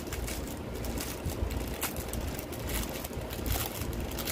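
Plastic packaging of a diamond-painting kit's resin drills crinkling and crackling as it is opened and handled, in irregular sharp crackles over a low rumble of handling noise.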